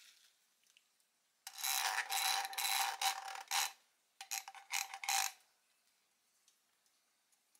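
Ground coffee being shaken from a glass jar into a paper-lined ceramic pour-over dripper, the glass rubbing and scraping on the dripper's rim. It comes in two rasping spells, a longer one a second and a half in and a shorter one about a second later.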